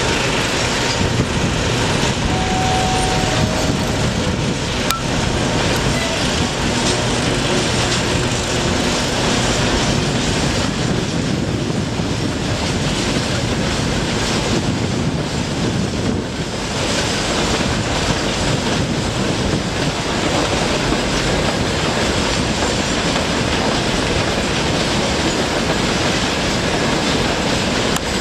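Loaded freight gondola wagons rolling past at low speed, their wheels clattering steadily over the rails.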